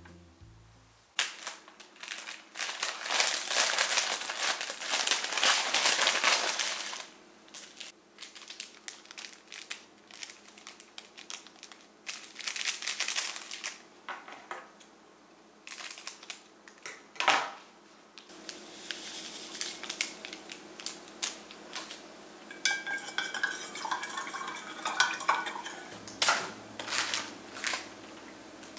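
Handling of cut flowers on a table: clear plastic flower wrapping rustling and crinkling, with scattered clicks and a sharp knock partway through, and scissors clicking as stems are trimmed near the end.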